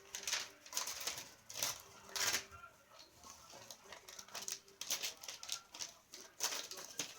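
Pet bird working at its cage toys, rattling a hanging chain and tearing paper: a run of irregular clicks, rattles and rustling tears, with a couple of louder bursts.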